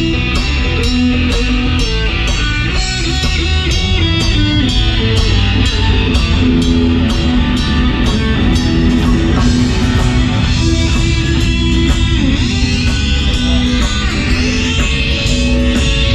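Rock band music: electric guitars over a drum kit keeping a steady beat.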